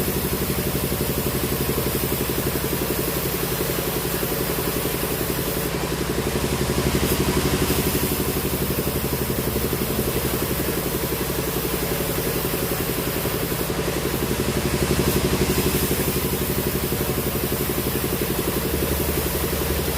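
Sawmill machinery running steadily, a low engine-like drone with a fast regular pulse, swelling a little twice.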